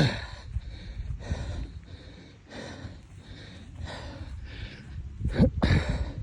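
A person breathing hard and out of breath, a string of heavy breaths about once a second, with two louder gasps at the start and about five seconds in.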